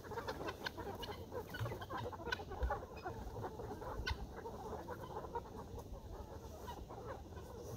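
A flock of chickens clucking quietly, many short calls overlapping, with a few faint clicks.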